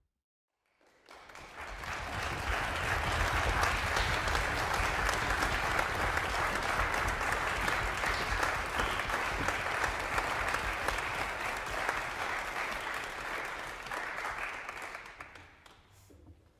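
Applause from a concert-hall audience. It swells up about a second in, holds steady, and dies away near the end.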